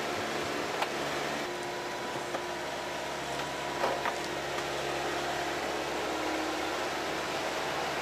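Menzi Muck walking excavator with a forestry harvester head running: a steady engine hum and noise with a faint higher whine over it, and a few sharp clicks about a second in and around the middle.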